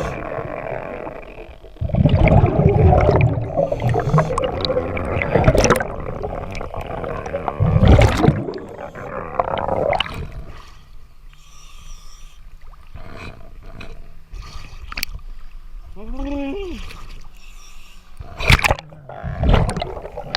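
Scuba diver breathing underwater through a regulator: loud bubbling exhalation bursts over water noise, dying down in the second half. A brief muffled tone rises and falls about two thirds of the way in.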